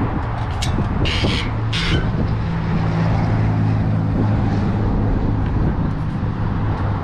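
A vehicle engine running steadily at idle, a low even hum. In the first two seconds there are a few brief sharp noises.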